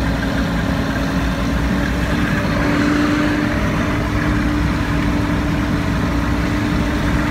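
Large truck's engine running steadily in gear while the truck drives, heard from inside the cab, with a steady hum that swells a little about three seconds in.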